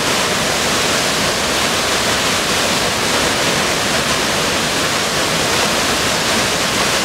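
Waterfall on a forest creek, falling in two strands into its plunge pool: a steady, unbroken rush of water.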